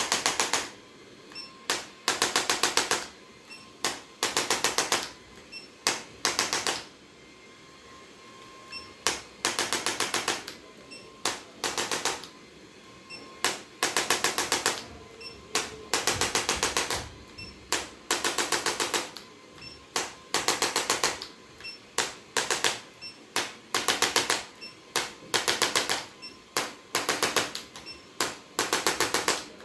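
Handheld electric percussion instrument working on the body, giving short bursts of rapid mechanical clicking, each burst about half a second to a second long, repeated many times with brief pauses between.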